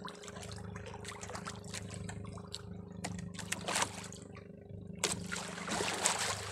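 Sea water lapping and trickling against a small boat's hull, with short clicks and taps, over a steady low hum. The water grows louder about five seconds in.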